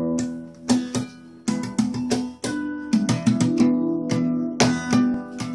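Acoustic guitar strummed, chords struck a few times a second and left ringing between the strokes.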